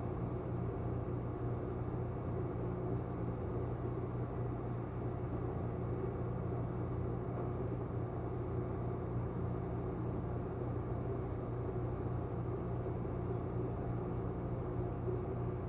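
Steady low hum with a hiss of background noise, unchanging throughout, with no distinct knocks or clicks.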